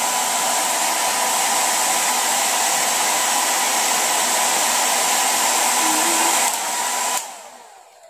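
Havells silent hair dryer running: a steady rush of blown air with a steady whine under it. Near the end it steps down slightly, then is switched off and the air dies away.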